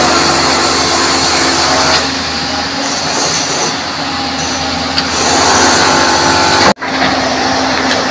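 Heavy machinery running steadily with a metallic squeal, broken by a momentary dropout near the end.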